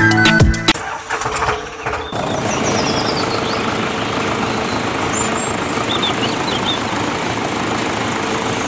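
Background music cuts off under a second in; from about two seconds in, a steady mechanical running sound as the miniature model tractor drives a toy grain mill through rubber belts.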